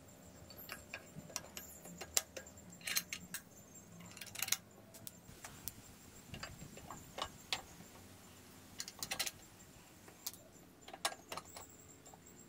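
Irregular metallic clicks and clinks of steel footrest mounting brackets and their bolts being handled and offered up against a motorcycle's engine and frame.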